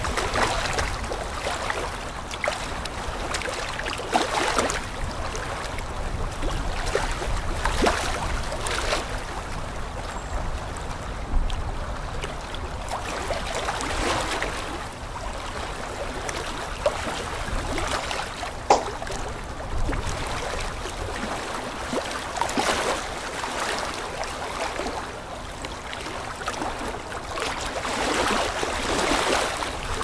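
Aquarium aeration bubbling: air from sponge filters and an air line gurgling and breaking at the water surface in uneven swells, with a couple of sharper pops. A faint steady hum runs underneath.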